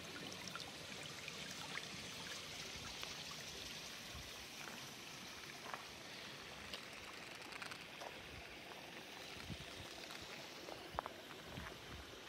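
Small shallow stream rushing and babbling over stones, a steady watery hiss that grows a little fainter in the second half. A few small clicks, the sharpest about eleven seconds in.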